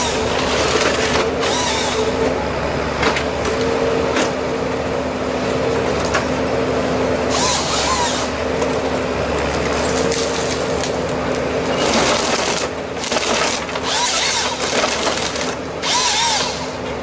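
Engine-powered wood-cutting machine at work: a steady motor note runs under louder rasping stretches of cutting every second or two.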